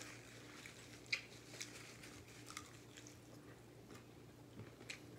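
Faint chewing and eating sounds of fried chicken: a few soft, scattered mouth clicks and smacks, over a low steady hum.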